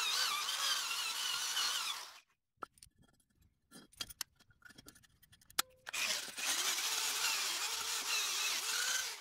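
Electric drill spinning a wheel attachment against welded steel, its whine wavering in pitch as it is pressed on. It stops about two seconds in, leaving a few faint handling clicks, then starts again about six seconds in and runs on.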